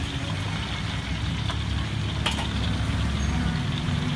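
Steady low rumble of an idling engine, with faint bubbling of meatballs frying in a wok of oil and a single sharp click about two seconds in.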